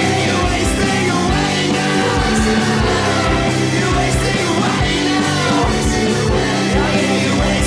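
A rock-style song with a drum beat and bass, with a singing voice in places.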